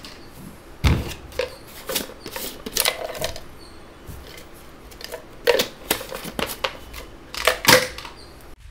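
A plastic pre-workout supplement tub being handled and opened by hand: irregular clicks, knocks and crinkling as the screw lid comes off.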